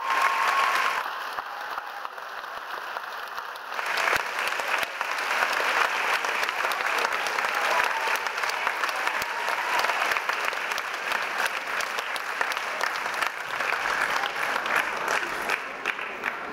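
Audience applauding: dense clapping that is lighter at first and swells about four seconds in, then goes on steadily.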